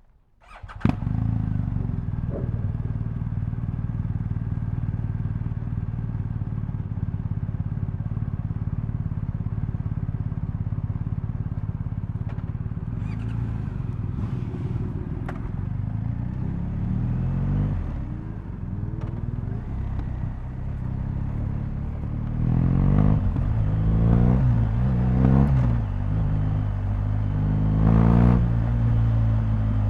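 BMW R1250GS boxer-twin engine starting up about a second in and idling steadily, then pulling away with the revs rising and falling several times as it goes up through the gears.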